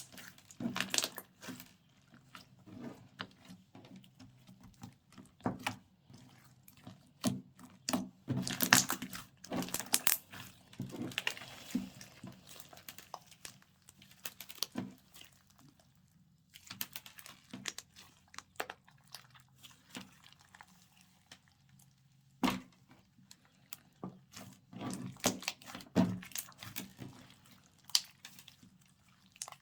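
Slime being mixed and squeezed by hand, giving irregular sticky clicks, pops and crackles, with quieter stretches in between.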